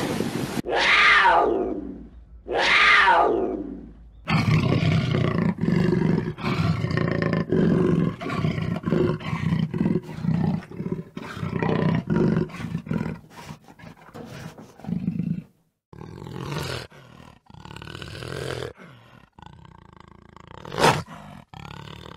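Jaguar calling: a long run of short, deep grunts repeated in quick succession, the species' sawing call, tailing off toward the end. Two long falling calls come first, near the start.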